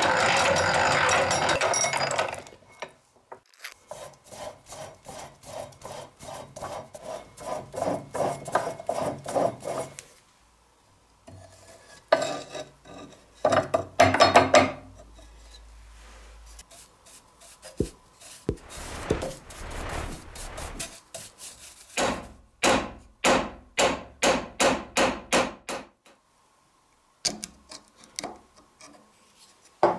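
Drill press running and drilling at the rivets of a cleaver's wooden handle, then bouts of quick, repeated hand-tool strokes scraping and rasping the wood around the rivets. A loud steady running sound stops about two seconds in; near the end the strokes come about two a second.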